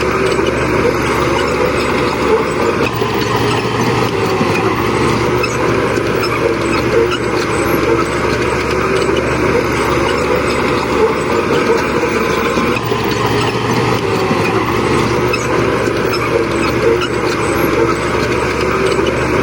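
Bulldozer diesel engines running steadily and loudly.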